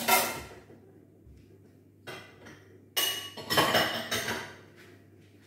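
Dishes and pots clattering and clinking as they are handled at a kitchen cabinet. There is a loud clatter at the start, a small knock about two seconds in, and a longer run of clanks about three seconds in with a short metallic ring.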